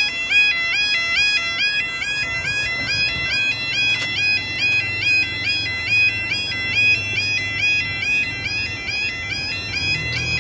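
Railway level crossing warning alarm sounding: an electronic two-tone wail stepping up and down in pitch, repeating steadily while the barriers lower, to warn that a train is approaching.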